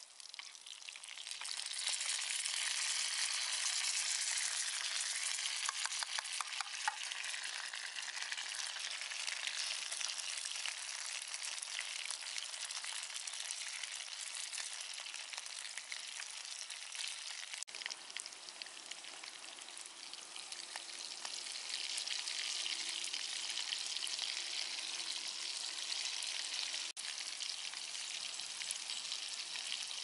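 Eggplant and oil sardines frying in a cast-iron skillet over a wood fire, a steady sizzle that jumps up about a second in as the sardine can's oil is poured in. Occasional taps of a wooden spatula stirring the pan.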